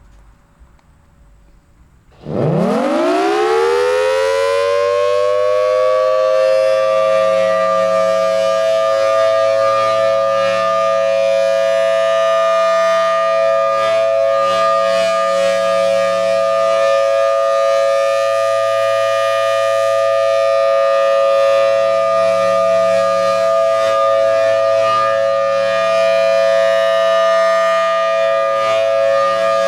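Federal Signal Thunderbolt 1000T outdoor warning siren sounding its Full Alert steady signal: about two seconds in, its pitch winds up fast and levels off into a loud steady tone made of two close pitches, which then holds.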